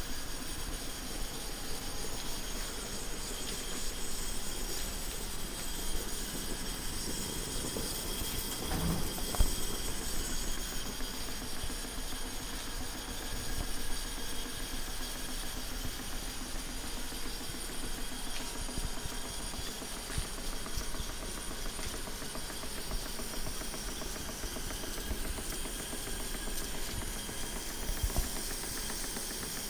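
Stuart S50 and Stuart 10V model steam engines running on steam: a fast, steady chuffing clatter with a hiss of steam, and one sharper knock about nine seconds in.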